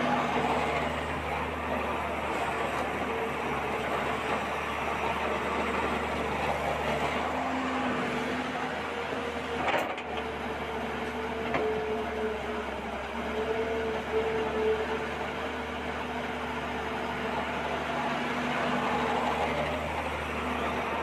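A toy RC excavator's small electric motors and gears whining steadily as it crawls on its tracks, over the hiss of shallow running water.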